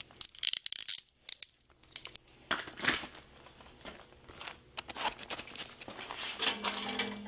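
Metal handcuffs clinking and clicking amid rustling clothing, a series of short sharp sounds. A low steady hum starts near the end.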